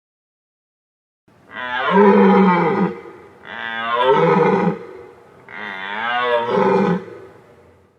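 A large animal calling three times, each call long, loud and falling in pitch, after a moment of silence at the start.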